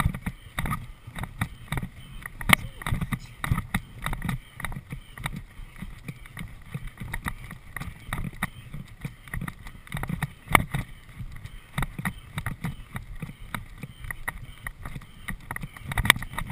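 A horse galloping on grass, its hoofbeats coming in a steady rhythm with the tack jingling and rattling. Two sharper knocks stand out, about two and a half seconds in and again about ten seconds in.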